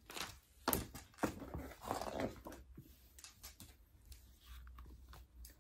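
A handful of short, breathy snuffling noises, made by a person voicing the animal, in the first two and a half seconds or so, then only faint traces.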